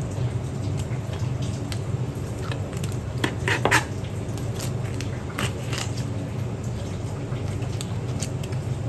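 Knife cutting and scraping through a sea bass on a plastic cutting board as the fish is butterflied, with scattered soft clicks and taps and one louder brief scrape about three and a half seconds in, over a steady low hum.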